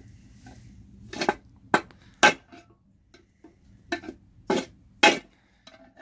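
A hammer striking a screwdriver held against an aluminium Honda valve cover, knocking a part out of it: six sharp metallic hits in two groups of three, about half a second apart.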